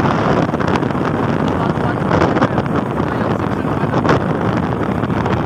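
Steady wind rushing and buffeting on the microphone, over the running noise of a vehicle travelling along a concrete road.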